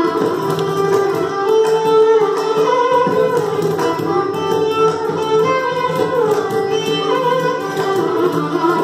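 Carnatic violins playing a melody in raga Andholika, Adi tala, full of sliding, bending ornaments, accompanied by the strokes of a mridangam and a kanjira.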